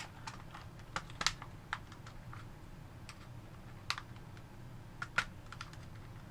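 Irregular sharp plastic clicks and snaps as a spudger pries apart the shell of a PS4 DualShock 4 controller and works its plastic clips loose. About a dozen clicks are scattered through, the loudest a little over a second in and about five seconds in.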